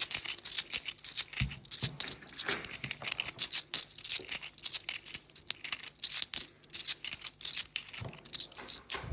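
Metal 50p coins clinking and sliding against each other as a stack is thumbed through one coin at a time in the palm, making many quick, irregular light clicks.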